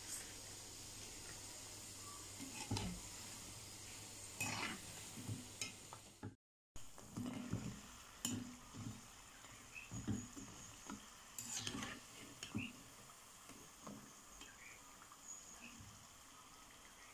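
Seeni bello pastries deep-frying in oil in a metal wok with a faint sizzle, and a perforated metal skimmer knocking and scraping against the wok as they are turned and lifted out. The sound breaks off briefly about six seconds in, and the knocks come more often after that.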